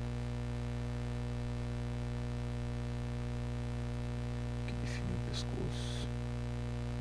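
Steady low electrical mains hum in the recording, with a few brief soft scratchy noises about five seconds in.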